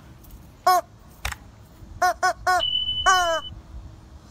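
Rubber chicken squeezed in short squawks: one, then three quick ones about two seconds in, then a longer squawk that falls in pitch.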